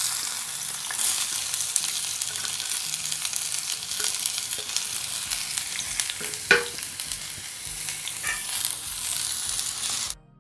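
Chopped onions sizzling in hot oil in a black kadhai, freshly dropped in, while a metal ladle stirs and scrapes them against the pan, with one louder scrape about six and a half seconds in. The sizzle cuts off suddenly near the end.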